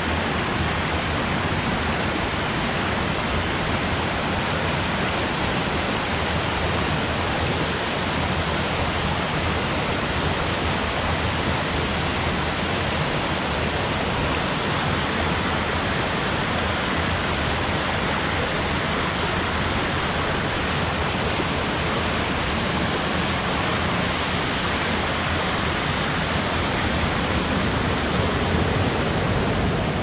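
Small waterfalls splashing into a pool and a shallow stream running over gravel: a steady rushing of water that grows a little louder near the end.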